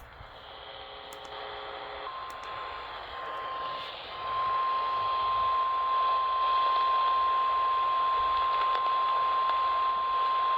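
Weather-radio warning alarm tone: a single steady high tone near 1 kHz heard over a radio receiver's static hiss. It comes in about two seconds in, drops out briefly twice, then holds steady and louder from about four seconds on. It signals an incoming emergency alert, here a flash flood warning.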